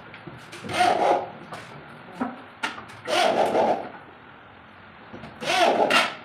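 A handheld tool working the wood of a plywood box frame, in three short, loud, scratchy bursts with quieter scraping between them.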